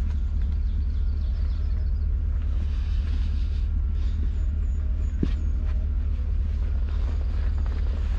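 Pickup truck engine idling, a steady low rumble, with light rustling and a few clicks as fishing gear is handled beside the truck.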